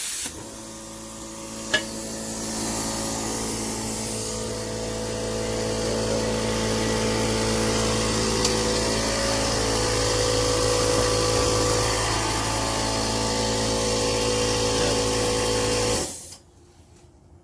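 Plasma cutter running: a steady hum with a spray of air hiss over it, cutting off abruptly about sixteen seconds in.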